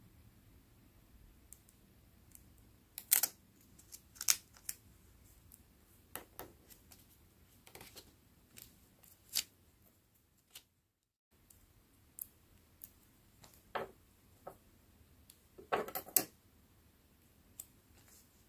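Metal tweezers tapping and scraping on a clear sticker laid on a small notebook page, with crinkles of the sticker film. The sharp clicks come a second or two apart, with a quick flurry near the end and a brief dead silence about ten seconds in.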